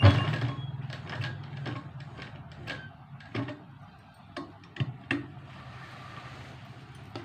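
Sewing machine mechanism clicking and knocking irregularly, about nine light clicks spread over several seconds, over a faint low hum.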